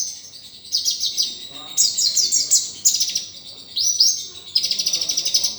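Kolibri (sunbird) singing a fast, varied song of high chirps and rapid trills in quick phrases, which stops right at the end.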